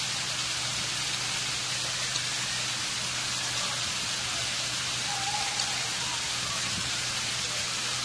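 Water from a man-made stone waterfall falling and splashing onto the rocks below in a steady, even rush.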